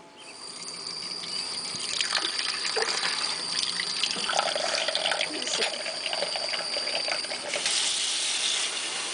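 Kitchen faucet running into a stainless steel sink, the stream splashing on a bowl as dishes are rinsed, with scattered light clinks. The splash turns brighter and hissier near the end.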